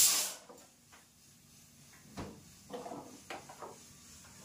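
A loud hiss cuts off a fraction of a second in, then kitchen things are handled: a single knock about two seconds in and a few lighter clatters soon after, as the fridge is closed and a carrot and metal container are taken to the counter.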